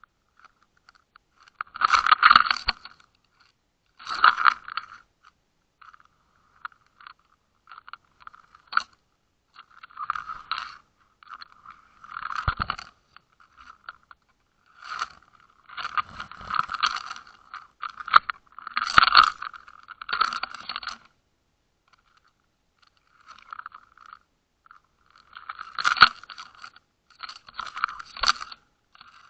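Irregular bursts of crunching and scraping, muffled through an underwater camera's housing, as the camera rig shifts and grinds on the sandy seabed.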